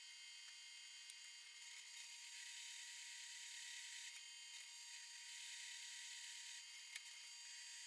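Drill press running faint, its twist bit cutting through a steel block: a thin, steady high whine with a couple of small clicks, about a second in and near the end.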